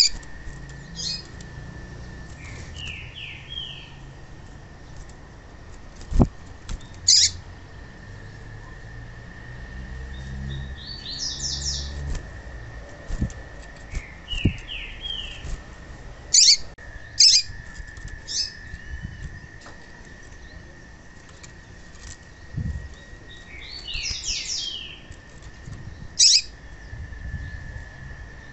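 Female yellow-bellied seedeater (papa-capim) calling: single sharp high notes and quick groups of descending chirps, repeated every few seconds over a steady high-pitched whine.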